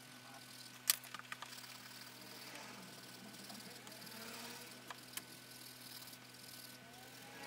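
Coloured pencil shading on squared paper, a faint steady scratching. A sharp click about a second in, with a few lighter ones just after, as the pencils are swapped, and two light taps around five seconds.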